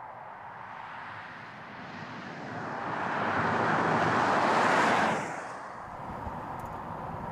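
Audi Q7 e-tron plug-in hybrid SUV driving past close by: a rush of tyre noise with no clear engine note swells over a few seconds, peaks about five seconds in, then cuts off suddenly, leaving a faint steady background rush.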